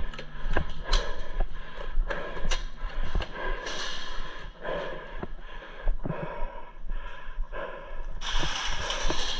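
A player's breathing and movement noises, with irregular sharp clicks and knocks scattered through.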